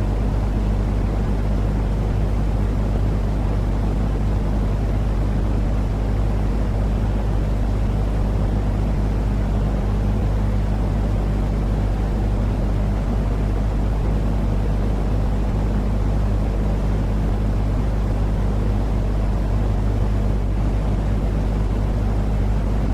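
Steady sleep-aid noise, heaviest in the low end, blended with a cat's soft purring as a constant low hum.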